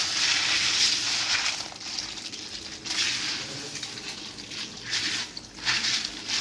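Kitchen tap running into a plastic colander while its contents are rinsed by hand, the splashing loudest at first, then quieter with a few surges.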